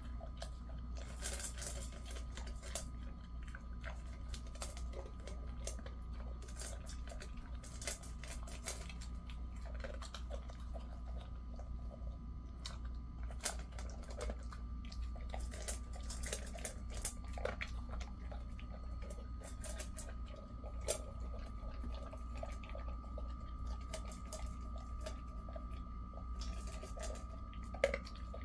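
A Jindo dog eating from a stainless steel bowl: irregular crunching and chewing, with clicks of food and muzzle against the metal, over a steady faint hum.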